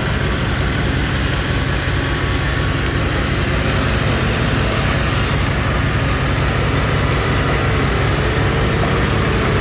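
Toyota Land Cruiser HDJ80's 4.2-litre straight-six turbodiesel running steadily while the truck is bogged in a deep mud rut.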